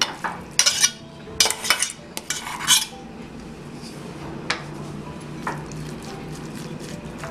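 A metal spoon knocking and scraping against a glass bowl as ground chicken is scooped into it and worked. There is a cluster of clicks in the first three seconds, then a few lighter taps.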